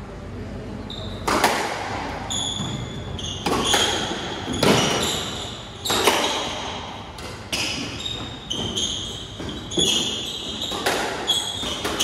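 Squash rally: the hard rubber ball cracks off rackets and the court walls about once a second, each hit echoing in the court, with short high squeaks of court shoes on the wooden floor between hits.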